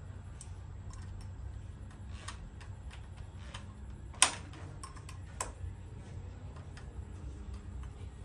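Scattered small metallic clicks and knocks from hands and tools working on a miter saw's blade arbor as the arbor bolt is locked down, with two sharper knocks about four and five and a half seconds in.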